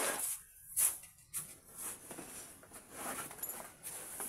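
Sacks rustling and knocking as they are lifted and set down in a truck's cargo box. There is a sharp rustle a little under a second in, then scattered softer rustles and thuds.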